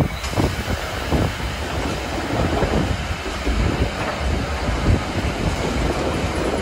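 Steam train running on the Harz narrow-gauge line: a steady, noisy rumble with irregular rattling.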